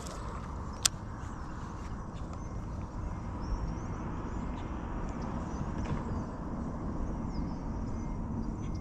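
Steady low outdoor rumble with faint bird chirps, and a single sharp click about a second in.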